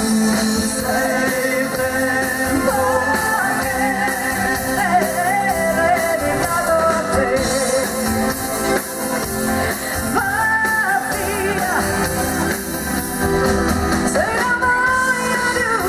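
Live pop-rock band with a woman singing lead, holding long notes with vibrato over drums and the band.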